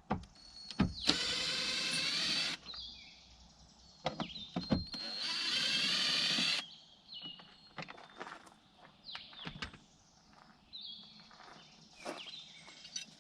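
A handheld power driver's motor running in two spins of about a second and a half each, driving fasteners on a truck door, with clicks and knocks of tools and door parts between.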